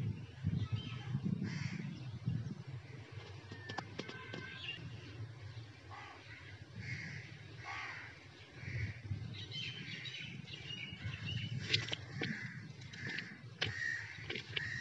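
Crows cawing over and over, more often in the second half, over a steady low rumble.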